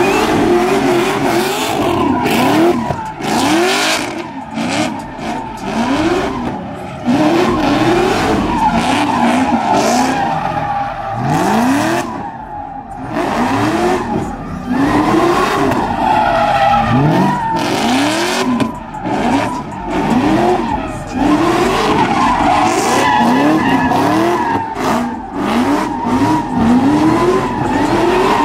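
Car drifting in circles: the engine revs up again and again, roughly once a second, in quick rising sweeps, while the spinning rear tyres squeal steadily.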